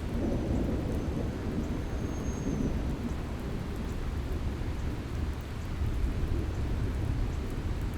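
Steady rushing water with a deep, even rumble and no pauses.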